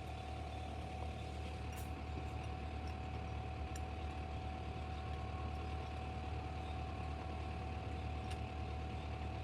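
A machine's motor running with a steady low hum and a steady whine above it, with a few faint light clicks.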